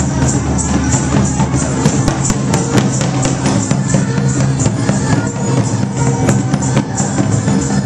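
Live Indian folk music: drums beating a steady rhythm with jingling, tambourine-like percussion over held low tones.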